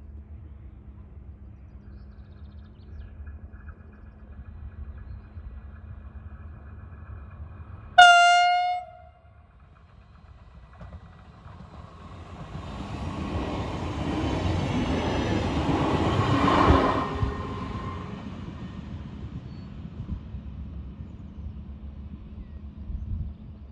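Electric multiple-unit train of the DB Class 424/425/426 family sounding its horn once, a loud blast of about a second, then passing by: the running noise swells, peaks with a steady whine and fades away.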